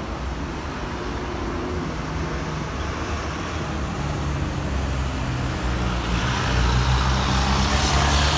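Road traffic: a vehicle engine running low and steady, getting louder about six seconds in as a vehicle draws close.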